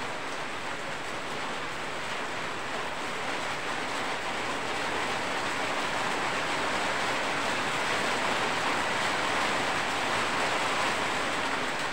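Rain falling steadily, an even hiss that grows gradually louder through the middle.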